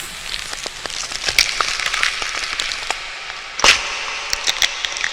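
Staged horror sound effect of a victim's flesh tearing and bones breaking: a run of sharp cracks and snaps over a steady hiss, with one loudest crack about three and a half seconds in.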